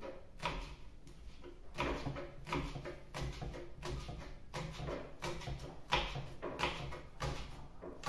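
Kitchen knife slicing an onion into rings, each stroke a short knock against the cutting board, about two a second with an uneven rhythm.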